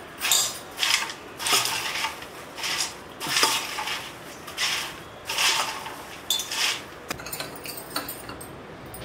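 Metal spoon scraping around a steel bowl, tossing popcorn to coat it with chilli oil: a run of rustling scrapes and clinks, about one a second, that die down after about seven seconds.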